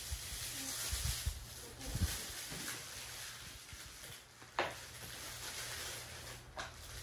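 Pen tip scratching on paper as lines are drawn, with a few soft low thumps early on and a sharp tick about four and a half seconds in.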